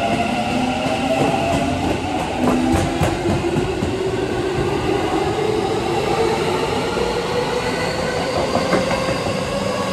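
Keikyu New 1000 series stainless electric train accelerating away from a station: its Mitsubishi IGBT-VVVF inverter and traction motors whine in several tones that climb steadily in pitch as it gathers speed. Wheels click over rail joints about two to three seconds in.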